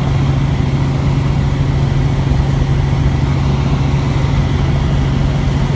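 Helicopter in flight: a loud, steady drone of engine and rotor with a strong low hum.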